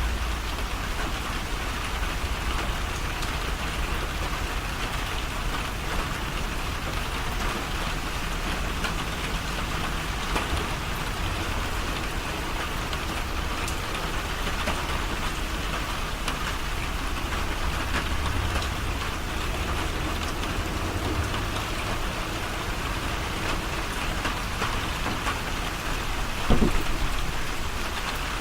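Steady rain falling and pattering on surfaces, with a single short thump near the end.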